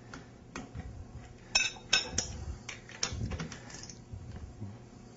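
Steel wrench and socket clinking and ticking against the tie-rod nuts of a waterjet intensifier as the nuts are torqued to 20 foot-pounds: a few light ticks, three ringing metallic clinks about a second and a half in, then more scattered ticks.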